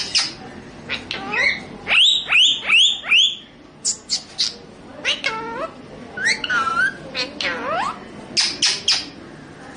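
Indian parrot squawking: a series of sharp calls that sweep down in pitch, with a quick run of four loud ones about two seconds in and scattered calls after.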